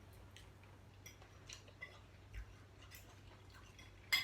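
Faint, scattered light clinks of cutlery and dishes during a meal, with a soft thump about halfway and a sharper clink near the end.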